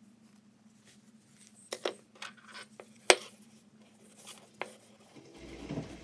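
A few light clicks and scrapes of a mechanical pencil and craft knife handling a small basswood carving over a paper pattern, with one sharp tap about three seconds in.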